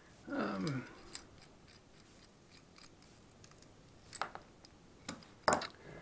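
A few sharp metal clicks and clinks as a broken locking screw-gate carabiner and its snapped-off lock piece are handled and set down on paper over a table. The clicks are spread out, the loudest about five and a half seconds in.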